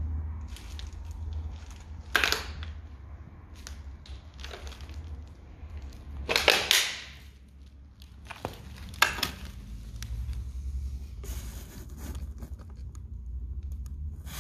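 Footsteps crunching through paper, cardboard and plastic litter, in a few separate crackling crunches, the loudest and longest about halfway through, over a steady low rumble.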